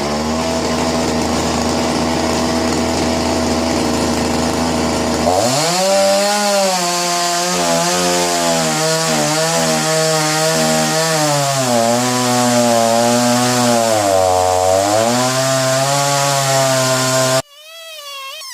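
Two-stroke clone chainsaw running steadily at low speed, then throttled up about five seconds in and held high, its pitch wavering and sagging as the chain cuts through a log for lumber. The engine cuts off suddenly near the end.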